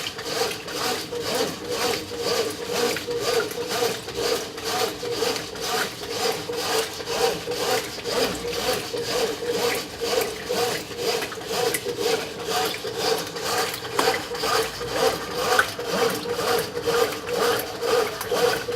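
Brastemp 9 kg top-loading washing machine agitating its load in water at the high water level: a steady, rhythmic swishing and rubbing of about two to three strokes a second.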